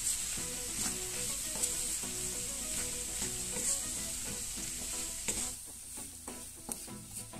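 Diced potatoes, bell pepper and onion sizzling in a nonstick frying pan while a wooden spatula stirs them, scraping and tapping on the pan. About five and a half seconds in, the sizzle drops away and the spatula's scrapes and taps are left.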